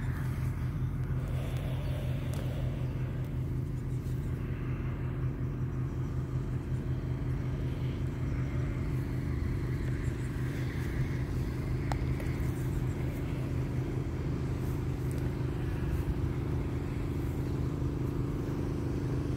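A small engine idling steadily, giving a low, even hum with a fine regular pulse. A single sharp click sounds about twelve seconds in.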